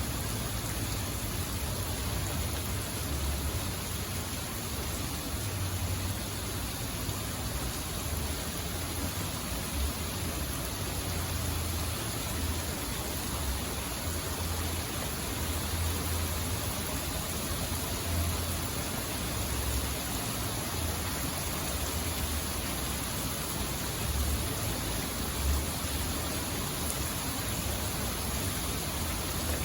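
Steady hiss of heavy rain, with wind buffeting the microphone in uneven low rumbles.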